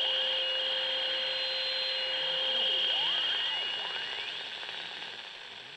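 Telephone line static: a steady hiss with a held high whine and sweeping whistles, fading away toward the end. It is the sound of a call that cannot get through.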